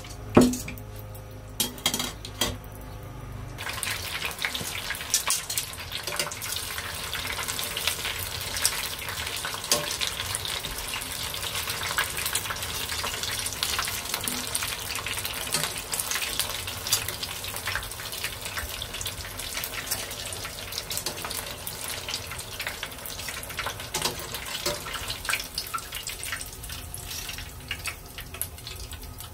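Battered squid rings deep-frying in hot oil in a pot: a dense, crackling sizzle that sets in about four seconds in, after a few sharp knocks, and eases slightly near the end.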